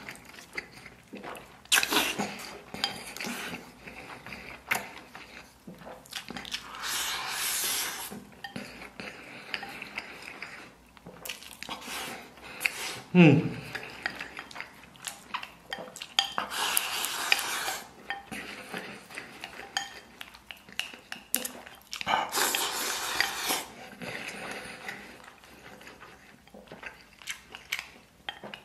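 Eating sounds: chopsticks clicking and scraping against a ceramic rice bowl, with chewing and noisy mouthfuls at intervals. About halfway through there is a short, falling 'mm' from the eater, the loudest sound here.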